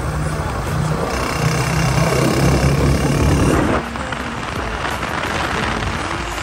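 Honda CG125 single-cylinder motorcycle engines running at road speed, heard from a moving bike together with wind and road rush; the sound drops abruptly about four seconds in.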